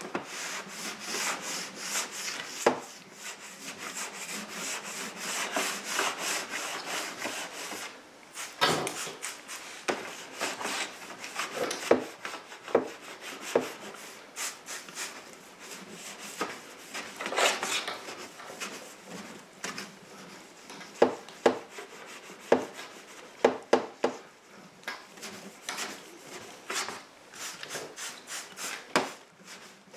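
Detailing clay rubbed back and forth in straight strokes over wet car paint lubricated with quick-detailer spray, a repeated rasping scrape. The gritty drag comes from bonded tar spots and deposits still stuck in the paint that the clay is pulling out.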